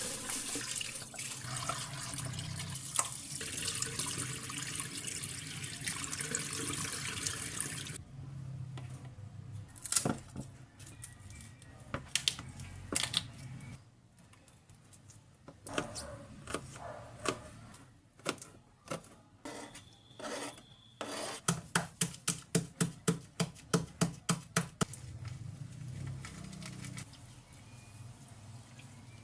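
Kitchen tap running for the first several seconds, then stops. Scattered clicks and knocks follow, then a run of about a dozen quick, even knocks, three or four a second, near the end.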